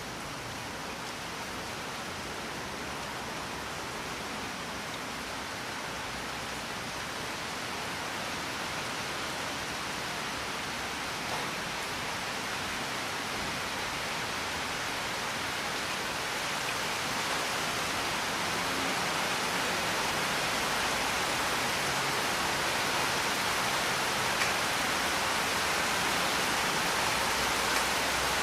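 Steady heavy rain falling, an even hiss of drops that slowly grows louder.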